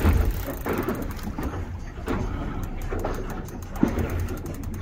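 Steady low rumble of a fishing boat at sea, its motor running, with irregular swells of water and wind noise over it.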